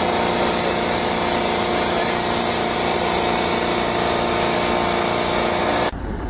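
Engine-driven hydraulic pump for rerailing jacks running steadily, a dense even mechanical hum that cuts off sharply near the end.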